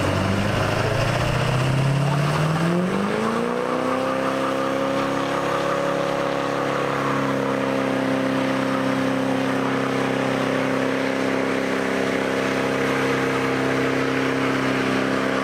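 Pickup truck engine revving up over about four seconds and then held at steady high revs during a burnout, its rear tyres spinning and smoking.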